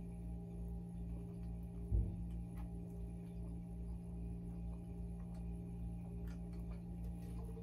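Steady low hum with faint gulping as carbonated water is chugged from a plastic drinking boot, and one soft thump about two seconds in.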